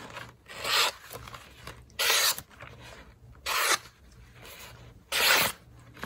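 A very sharp Scandi-grind knife blade (Brisa Borka 90, N690Co steel) slicing through a sheet of printer paper: four slicing cuts, each a short hiss, about a second and a half apart.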